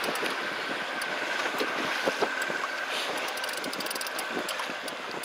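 Wind buffeting the microphone over the wash of the sea around a small boat, with a faint steady whine that fades out about four seconds in and scattered light clicks.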